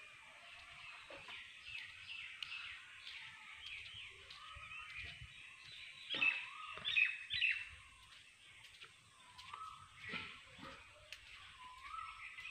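Several birds chirping and calling, with a short rising call repeating every few seconds; the loudest, busiest chirping comes about halfway through.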